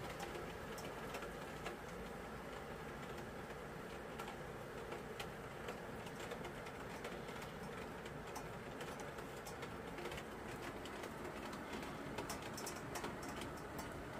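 Rain falling during a thunderstorm: a steady hiss with scattered sharp ticks.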